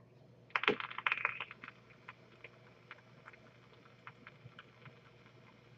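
Electronic cigarette atomizer coil crackling and popping as e-liquid vaporises during a long draw: a dense run of crackles about half a second in, then scattered single pops.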